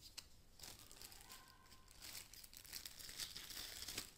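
Faint crinkling of a thin clear plastic packaging sleeve being handled.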